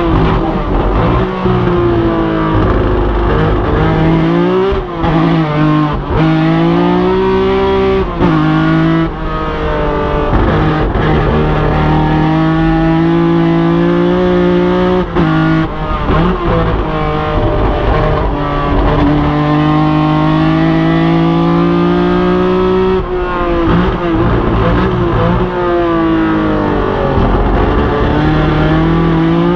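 In the cockpit of a 1975 BMW 3.0 CSL Group 4 race car, its straight-six racing engine is driven hard at speed. The pitch climbs steadily up through the revs, drops sharply at several shifts and lifts, then winds up again.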